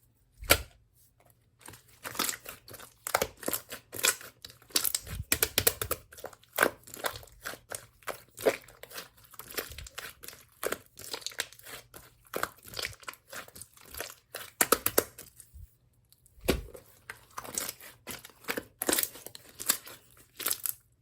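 Clear slime being squished, stretched and pressed by hand, giving a quick, irregular run of wet crackles, pops and clicks, with a couple of brief pauses.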